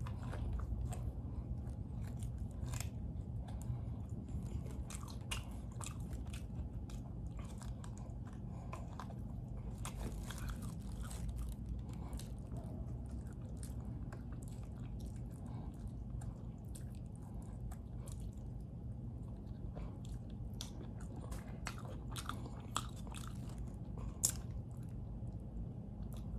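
A man chewing and gnawing on braised pig trotters close to the microphone, with many small irregular wet clicks and crunches, over a steady low hum.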